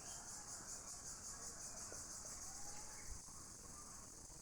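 Insects trilling steadily, a high, evenly pulsing chirr like crickets or cicadas.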